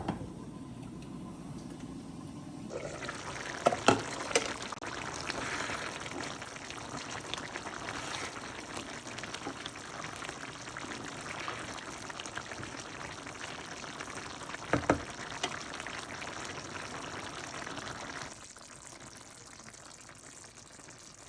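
Chicken and vegetables in teriyaki sauce simmering and bubbling in a pan on medium-low heat, a steady sizzle with a few sharp clicks about four seconds in and again near fifteen seconds. The sizzle drops away near the end.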